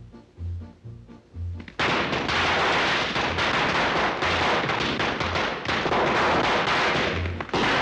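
Band music with a steady bass beat, then about two seconds in a string of firecrackers goes off in a rapid, dense crackle of sharp bangs that keeps on over the music.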